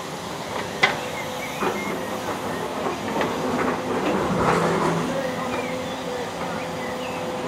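Volvo wheeled excavator working, its engine and hydraulics running steadily as the boom lowers the bucket into a trench. Sharp metallic clanks come through it, the loudest about a second in.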